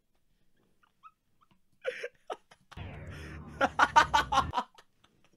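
A man laughing hard in short bursts, starting about two seconds in and peaking in a quick run of loud ha-ha bursts near the four-second mark, over a low steady hum.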